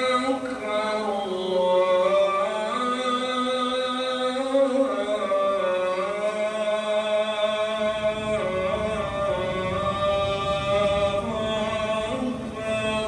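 A muezzin's amplified call to prayer (adhan): one man's voice holding long notes that glide slowly up and down. A low rushing noise comes in about eight seconds in.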